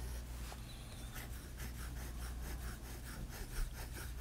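Steel medium nib of a Waterman Hemisphere fountain pen scratching on paper as it draws a row of quick loops, a soft rhythmic rasp at about four to five strokes a second, starting about a second in.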